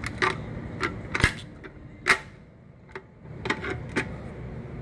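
A series of irregular sharp clicks and knocks, about eight of them, the loudest two a little after one second and about two seconds in.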